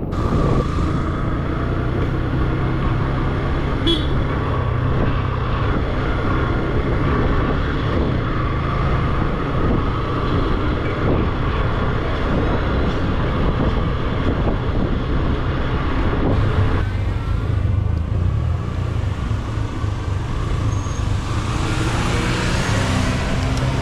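Yamaha FZ motorcycle engine running under way, a steady low drone whose pitch steps up and down a few times, over road and traffic noise.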